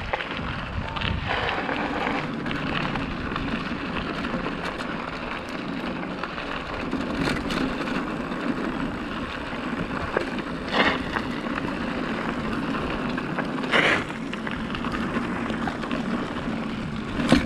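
Steady wind and rolling noise of a bicycle being ridden, with three brief knocks spread through it.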